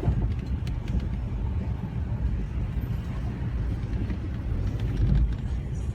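Nissan car running with a steady low rumble and a few scattered clicks: the grinding noise, cause unknown, that the owner is asking about.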